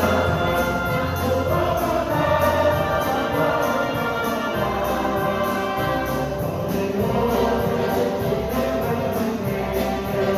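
Gospel choir singing with an orchestra playing, a steady sustained passage with held notes over a bass line.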